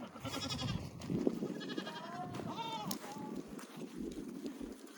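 Nigerian Dwarf goats bleating: about three short, high bleats in the first three seconds, the last one rising and falling in pitch.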